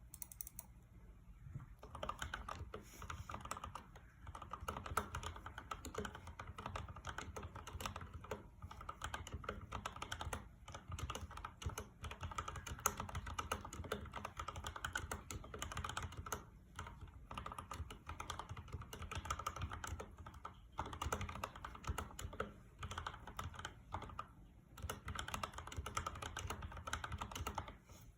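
Typing on a Royal Kludge RK84 mechanical keyboard fitted with lubed Akko CS Jelly Black linear switches: a dense, continuous run of keystrokes with brief pauses, starting about two seconds in.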